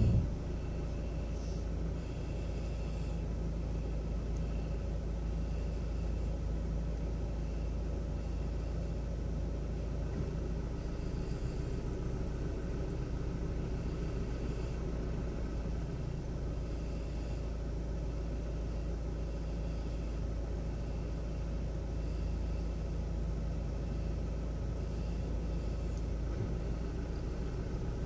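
Car engine and cabin noise running steadily, heard from inside the car as an even low rumble.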